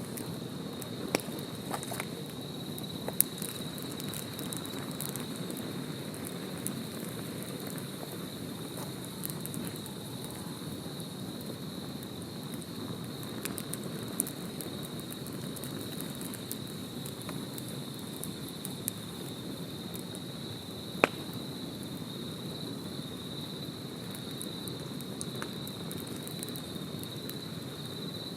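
Wood campfire crackling, with scattered small pops and a few sharper snaps, the loudest about three quarters of the way through. Behind it, insects trill steadily at a high pitch.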